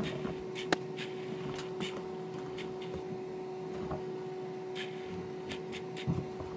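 Laundry being handled inside the drum of a front-loading washing machine: soft fabric rustles and a few light knocks and clicks, over a steady hum.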